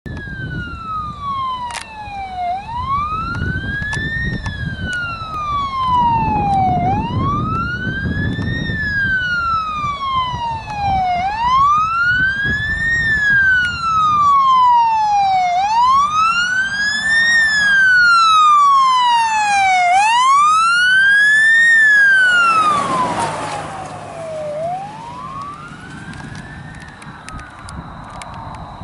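Emergency vehicle siren sounding a slow wail, its pitch rising and falling about every four and a half seconds over the rumble of the approaching vehicle. About three-quarters of the way through the vehicle passes close with a rush of noise. The wail then goes on fainter and lower as it moves away.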